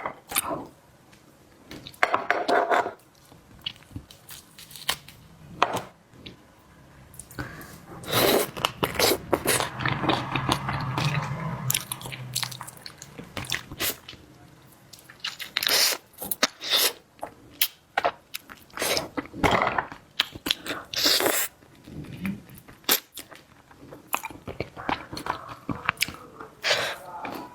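Close-up eating: someone biting and chewing seafood, with irregular crunches and clicks.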